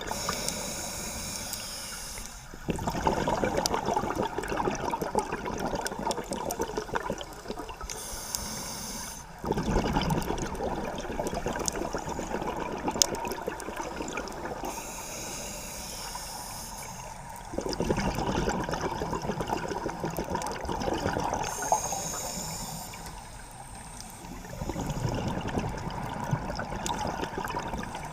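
Scuba diver breathing through a regulator underwater: a short hiss on each inhale, then a long bubbling, crackling rush of exhaled bubbles. Four breaths, one about every seven seconds.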